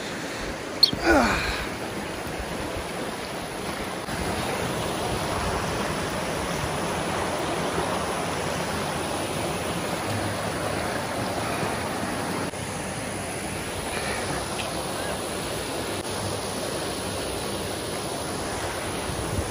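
Rushing creek water and a small waterfall: a steady hiss that grows a little louder for several seconds in the middle. About a second in comes a single short whistle-like sound that falls quickly in pitch.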